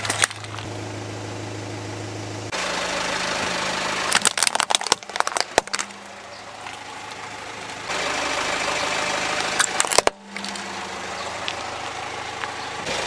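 Car engine idling while a tyre rolls slowly over plastic toys, with bursts of cracking and snapping plastic at the start, about four to five and a half seconds in, and again near ten seconds.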